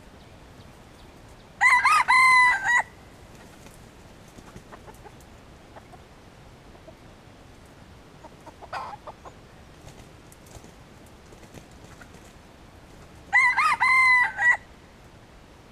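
Red junglefowl rooster crowing twice, each crow short and clipped at a little over a second, about twelve seconds apart, with a brief call between them.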